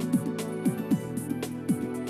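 Background music with a steady beat and short falling bass notes.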